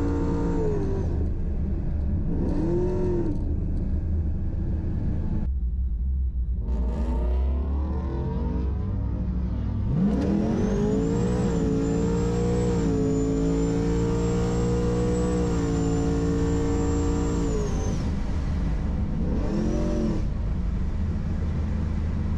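Torqstorm-supercharged LS V8 of a Pontiac G8 GT heard from inside the cabin: the engine note drops about a second in, rises and falls briefly, then climbs near the middle and holds a steady pitch for several seconds with a thin high whine on top before dropping again, with one more short blip near the end.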